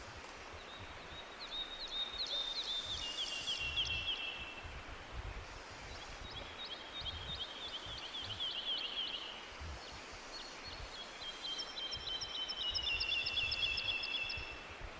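A songbird singing three long, rapid trills, each stepping down in pitch partway through, with a second, higher trill overlapping the last one. Underneath, a steady rush of waterfall water.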